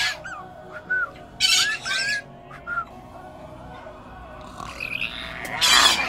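White-bellied caique calling at close range: a string of short rising-and-falling whistles, harsh squawks about a second and a half in, and a louder squawk near the end.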